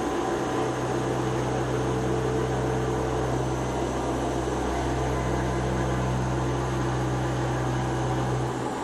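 Haas VF-3YT CNC vertical machining centre running while it machines a thermocol (polystyrene foam) die: a steady low hum with a hiss over it, dipping briefly near the end.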